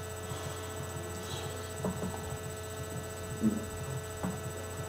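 Steady electrical hum with several fixed tones, with a few faint taps from food being handled and eaten.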